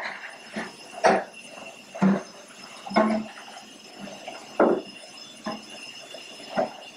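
Dishes and utensils clinking and knocking against each other in a kitchen sink as a toddler handles them: about seven irregular clinks, some briefly ringing.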